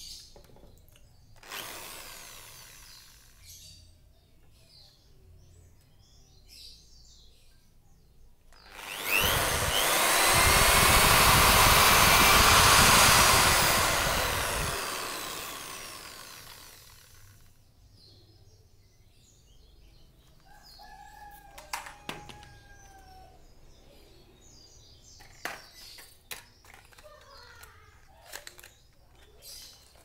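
Small electric drill drilling into the wooden frame of a bird cage being repaired: a short burst about a second and a half in, then a long run of several seconds from about nine seconds in that winds down slowly. Faint bird chirps follow.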